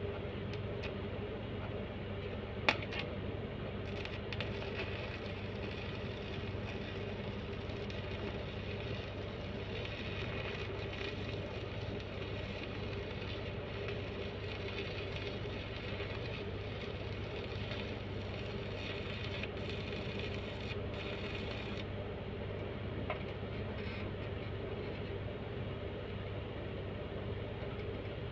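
Faint arc-welding crackle and hiss from a few seconds in until about three quarters through, over a steady low electrical hum.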